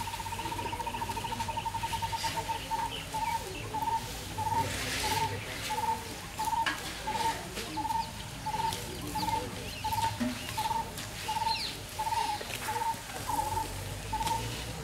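A bird calling one short, pitched note over and over, about two to three times a second, after opening with a rapid trill of the same note.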